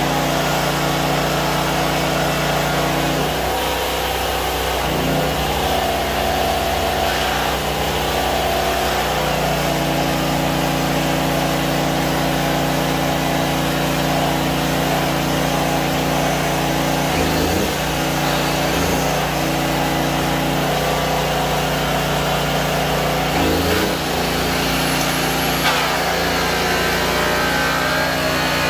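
High-speed polishing equipment running steadily while stainless steel is buffed toward a mirror finish, a constant motor hum that dips in pitch briefly a few times, about three seconds in, around seventeen seconds and around twenty-three seconds in.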